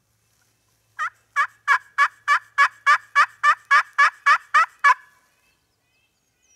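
Turkey yelping: a run of about fourteen evenly spaced yelps, roughly three a second, growing slightly louder and then stopping abruptly.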